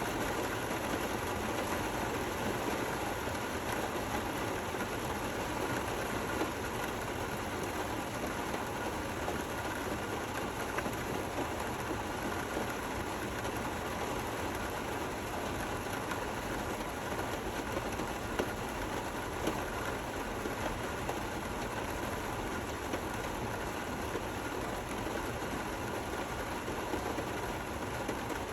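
Steady, gentle rain: an even hiss of falling rain with a few slightly louder drops here and there.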